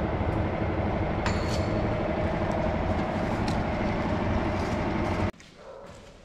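Metal lathe running and turning a steel suspension top-mount plate: a loud, steady machine rumble with faint clicks. It cuts off suddenly about five seconds in.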